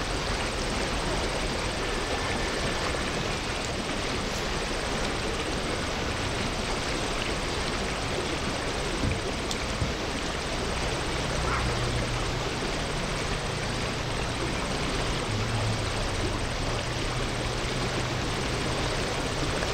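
Steady rushing of high, swift river water, an even hiss that holds unchanged throughout.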